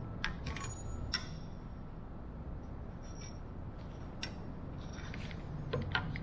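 Small metal brackets and a trigger clamp being handled: scattered light clicks and clinks, a cluster in the first second and another near the end as the pieces are clamped, over a faint steady low hum.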